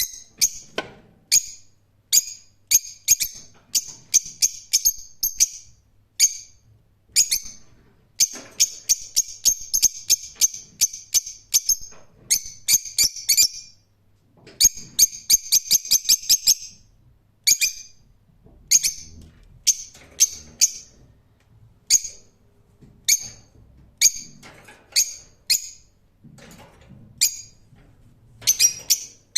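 Lovebirds chirping: sharp, high, short calls, some single and some in quick runs of several a second.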